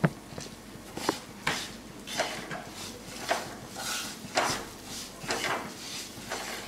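Wooden spatula scraping and knocking against a black kadai while stirring semolina roasting in ghee, in short strokes about twice a second.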